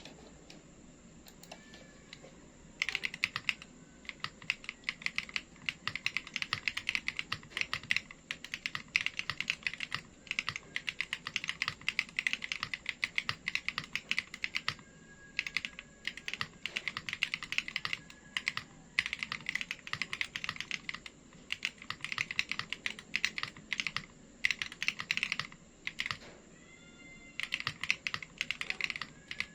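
Fast typing on a mechanical keyboard with Akko Stellar Rose switches: quick runs of clicky keystrokes that start about three seconds in, with brief pauses partway through and near the end.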